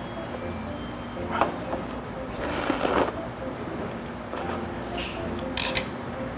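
Slurping clam kalguksu noodles and broth: one long slurp about two and a half seconds in and two shorter slurps near the end, after a single click about a second and a half in, over a faint steady hum.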